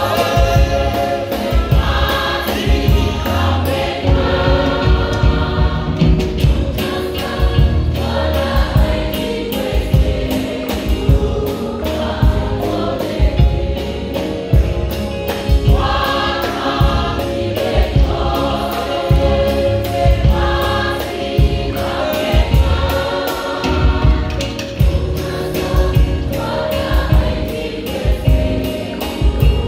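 A large church choir of women and men singing a gospel song in Khoekhoegowab, voices rising and falling together in phrases over a steady rhythmic beat.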